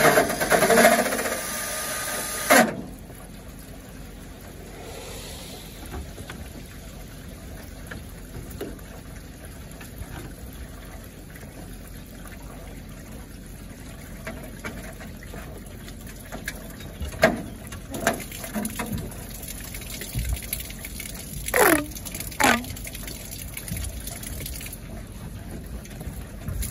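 Cordless drill with a hole saw cutting through a metal downspout for about two and a half seconds, with a steady whine, then stopping abruptly. Later come a few sharp clicks and knocks, and two short squeaks near the end, as a plastic diverter fitting and corrugated hose are pushed into the hole. A steady faint hiss runs underneath.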